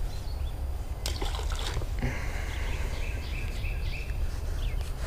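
A released redbreast sunfish splashes into the creek about a second in, with water trickling and dripping just after. A run of short, repeated high chirping notes follows in the middle, over a steady low rumble.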